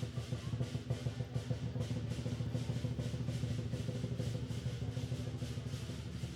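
A fast, continuous drum roll on low-pitched drums that stops abruptly at the very end.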